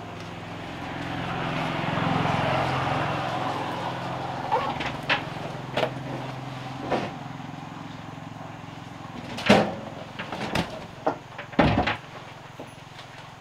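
A motor vehicle's engine hum swelling and fading over the first few seconds, as something passes or drives off, followed by a series of scattered sharp knocks, two of them loud, about two-thirds of the way through and near the end.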